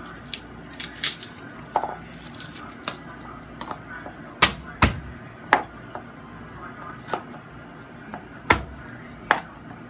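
Kitchen knife chopping garlic cloves on a plastic cutting board: irregular sharp knocks, a few of them much louder than the rest.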